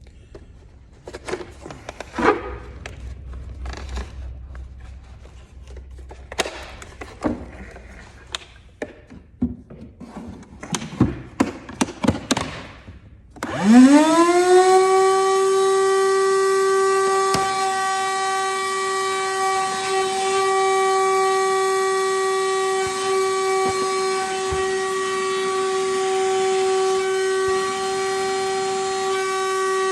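Ridgid 18 V cordless wet/dry vacuum: a series of clicks and knocks from handling it, then about 13 seconds in the motor switches on, its whine rising quickly and settling into a steady high whine with many overtones. The whine is loud, and the owner says it has grown louder over time, though the impeller he inspected did not look bent.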